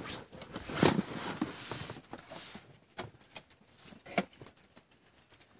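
A few scattered knocks and splashy rustles from a small boat on the water, the loudest about a second in, with no outboard motor running.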